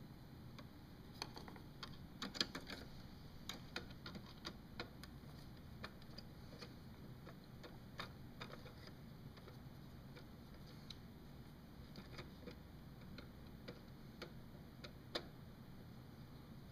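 Faint, irregular clicks and ticks of a Phillips screwdriver backing out small screws from a plastic radio housing, with one sharper click near the end.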